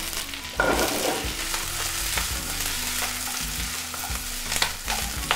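Brussels sprouts and diced apples sizzling in hot oil in a sauté pan, with a few sharp pops from the sprouts' water content. There is a louder burst of sizzle about half a second in, and the vegetables rattle as the pan is tossed.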